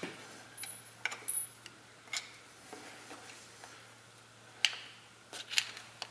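Irregular light metallic clicks and taps of a screwdriver picking at the filter-neck seal inside a 4L60E automatic transmission case, trying to crush its edge in to pry it out. The sharpest clicks come near the end.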